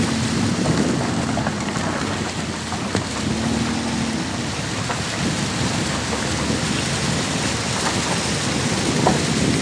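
Wind buffeting the microphone of a moving camera: a steady rushing rumble, with a faint low hum coming and going.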